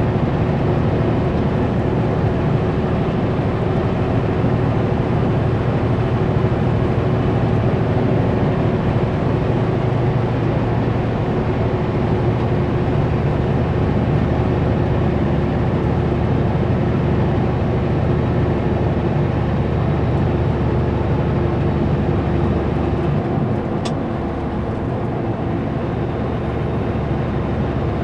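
Kenworth W900L semi truck driving at road speed: a steady engine drone mixed with tyre and road noise, dipping slightly in level near the end.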